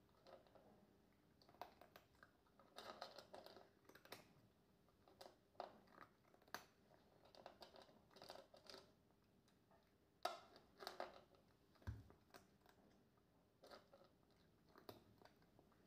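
Flame-point Siamese cat chewing and crunching its food from a bowl: a faint, irregular run of short crunches, some in quick clusters.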